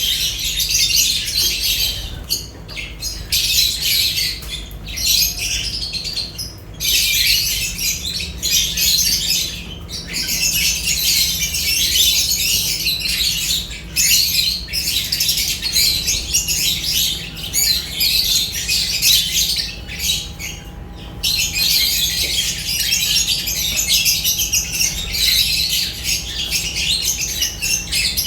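A group of lovebirds chattering and squawking in dense, high-pitched calls that go on almost without a break, pausing only briefly now and then.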